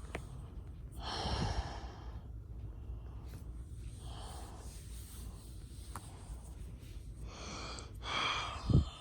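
A person breathing near the microphone: three soft breathy exhales, with a short thump near the end.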